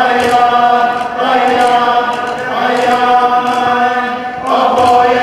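Iñupiaq group singing in unison, a chant-like dance song on long held notes that move in steps. Drums seem to beat faintly underneath at a steady pace.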